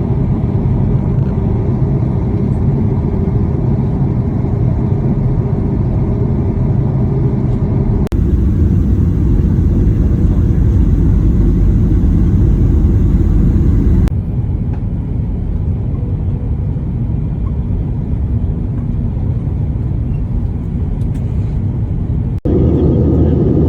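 Steady low rumble of an Airbus airliner's cabin in flight: engine and airflow noise heard from inside. It jumps abruptly in level and tone three times, about eight, fourteen and twenty-two seconds in.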